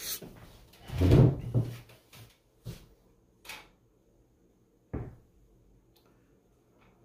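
Handling knocks and thuds from subwoofer parts being worked into place: one loud thud about a second in, then three lighter knocks spaced out over the next few seconds.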